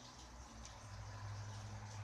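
Electric fan's motor running with a faint, steady low hum and a light hiss of moving air.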